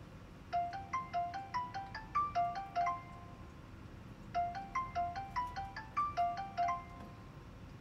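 Smartphone call ringing out unanswered: a short melodic chime jingle of quick stepped notes, played twice with a pause between.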